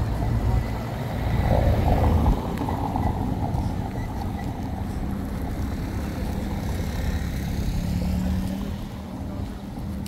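A motor engine running close by: a heavy low rumble for the first couple of seconds, then a steady engine drone that rises slightly near the end.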